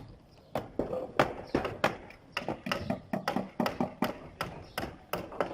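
Hammers striking nails into wooden concrete formwork, several blows a second in an uneven, overlapping rhythm.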